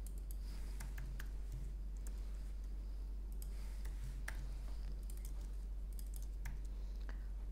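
Irregular, scattered keystrokes on a computer keyboard as code is typed and edited, over a steady low hum.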